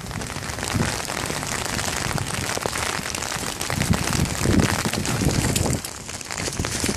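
Steady rain falling on wet pavement, a dense hiss flecked with drop ticks. Wind gusts rumble against the microphone, strongest from about four to five and a half seconds in.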